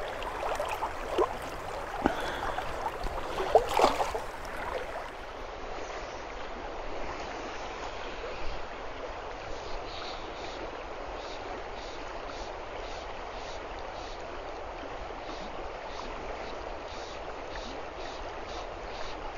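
River current rushing and rippling around a wading angler. In the first few seconds there are a few splashes and sloshes from wading steps, and after that the flowing water runs steadily.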